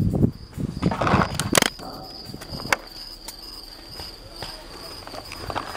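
Rustling near the microphone with a loud sharp pop about a second and a half in, then a steady high insect trill with a few more sharp pops: paintball markers firing around the field.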